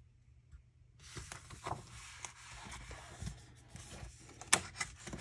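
Faint rustling and sliding of a large sheet of cardstock being handled on a craft mat, starting about a second in, with one sharp paper snap near the end.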